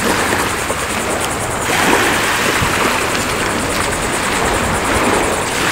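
Steady loud wind noise rushing over the microphone, with no distinct events.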